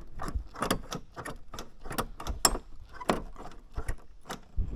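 Rear door latch mechanism and linkage rod of a second-generation Dodge Ram being worked by hand: an irregular run of about a dozen small, sharp clicks and clacks.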